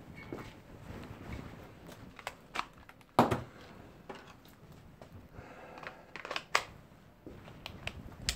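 Scattered knocks, clicks and clatter of things being handled in a workshop, with a loud sharp knock about three seconds in and a cluster of knocks a few seconds later.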